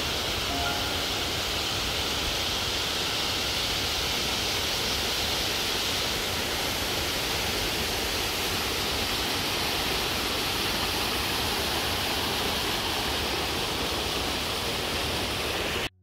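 Creek water rushing over rocky rapids and a broad ledge waterfall: a steady, unbroken rush that stops abruptly at the very end.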